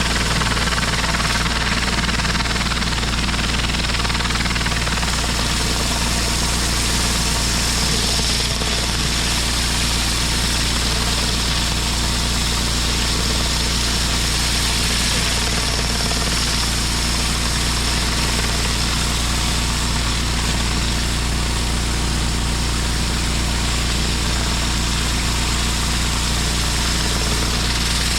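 Engine-driven pressure washer running steadily, its motor humming under the continuous hiss of the high-pressure water jet blasting concrete.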